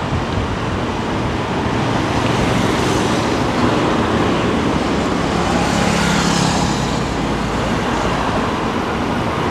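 Road traffic, a steady rush of cars with one vehicle passing close about six seconds in, its engine hum and tyre noise swelling and fading.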